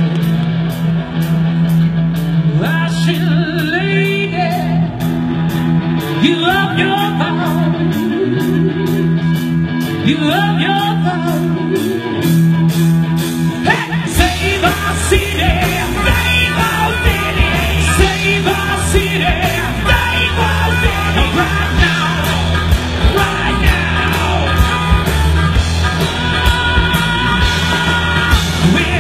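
Live rock band playing: a singer over electric bass, guitar and drums with steady cymbal ticks. About halfway through, a deeper, heavier bass part comes in and the band plays fuller.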